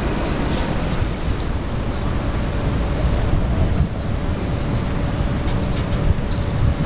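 Outdoor urban ambience: a steady low rumble, with a short high chirp repeating about once a second.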